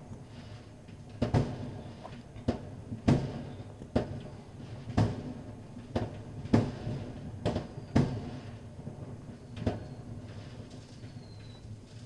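Sharp knocks and bangs, about a dozen, at irregular intervals over a steady low hum.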